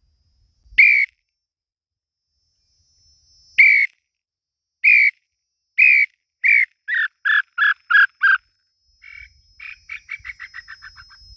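Tataupa tinamou (inhambu-chintã) song: a series of whistled notes that come faster and faster and drop in pitch. It is followed by a fainter, quicker run of falling notes near the end.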